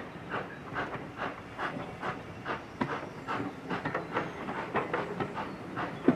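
Steam locomotive hauling a train of coaches, its exhaust chuffing in a steady rhythm of about two to three beats a second, with the coach wheels clicking and knocking on the rails.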